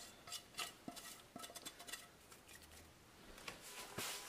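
Faint taps and scrapes of fingers against a plate as leftover dry seasonings are knocked off it into a pot of stew: a loose run of small clicks in the first second and a half, then quieter, with a sharper tap about four seconds in.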